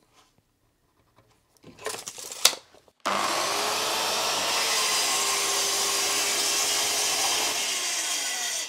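Festool TS 55 plunge-cut track saw cutting through an OSB panel along its guide rail. After a few light knocks, the saw starts abruptly about three seconds in and runs steadily through the cut, easing off at the very end.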